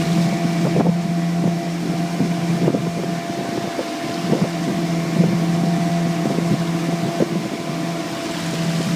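15 hp Mariner outboard motor running at a steady speed pushing a jon boat, with scattered irregular knocks and wind on the microphone.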